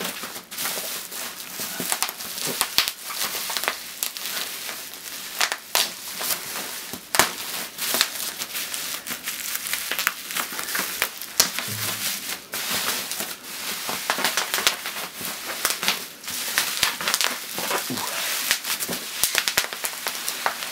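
Plastic bubble wrap crinkling and crackling as it is handled and pulled out of a package, with many irregular sharp crackles throughout.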